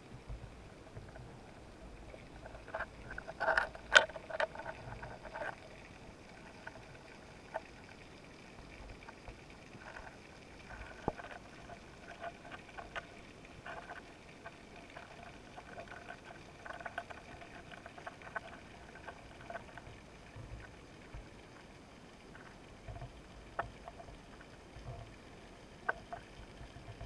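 Underwater sound picked up by a camera housing mounted on a speargun during a dive: a faint steady hiss with scattered sharp clicks and knocks, the loudest cluster of them about four seconds in.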